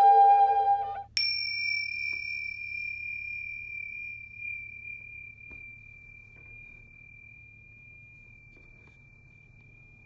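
A held woodwind-like note with rich overtones ends about a second in. Then a single high, pure, bell-like tone is struck and rings on, fading slowly over the next eight seconds.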